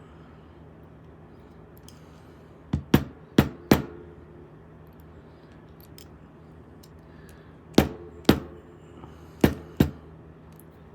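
Eight sharp knocks from a Medeco lock being taken apart on a workbench, in two quick groups of four about four seconds apart.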